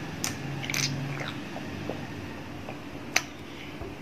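A person drinking water straight from a plastic water bottle: mouth and swallowing sounds, with two small clicks in the first second and a sharp click about three seconds in.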